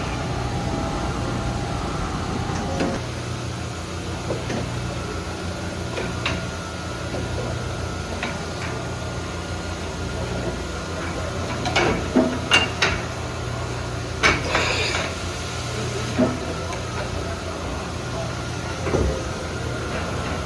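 Dahlih HC-2000 horizontal machining center powered up, with a steady hum. Sharp mechanical clunks and clicks come in a cluster a little past the middle and a few more near the end.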